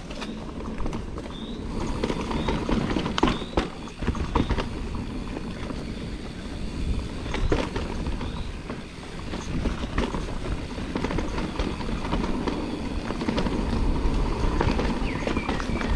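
Mountain bike descending a rough dirt trail, heard from a chest-mounted camera: a steady rush of wind and tyres, with sharp knocks and rattles from the bike as it hits bumps.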